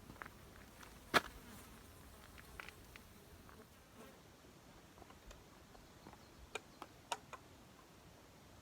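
Faint buzzing of flying insects close by, with scattered sharp clicks and taps, the loudest about a second in and a few more near the end.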